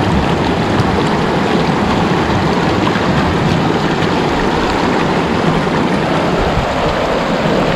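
Fast mountain stream rushing over rocks close by: a loud, steady rush of water.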